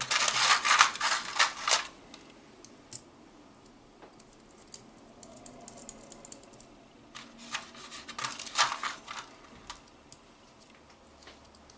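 Small metal screws and nuts clicking and rattling in a plastic parts tray as a hand picks through them, then, after a few faint ticks, another cluster of light clicks and scrapes as small aluminium kit parts and screws are handled and fitted to a robot motor by hand.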